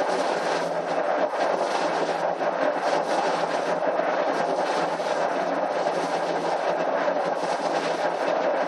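Siemens Somatom CT scanner running a scan: a steady rushing mechanical noise from the rotating gantry, with a low hum underneath.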